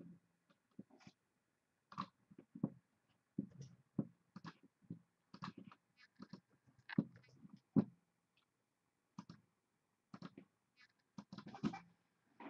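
Faint, irregular clicks and soft knocks of a computer mouse and keyboard as a list is selected, copied and pasted into a spreadsheet.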